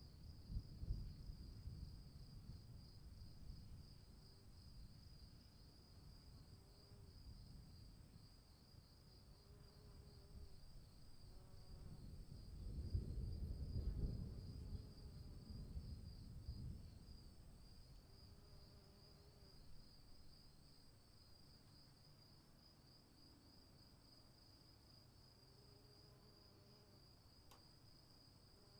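Crickets chirring steadily in a fast pulsing trill. A low rumble of distant thunder swells and fades about halfway through.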